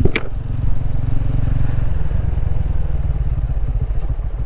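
Single motorcycle engine running at low road speed, heard from the rider's seat, with a steady run of firing pulses. The higher part of its note drops away about two seconds in as the bike slows. A brief, sharp sound falling in pitch cuts in just as it begins.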